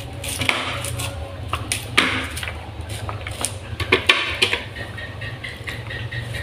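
Kitchen knife slicing kernels off raw sweet corn cobs onto a plastic plate: irregular scraping cuts and small clicks of kernels falling.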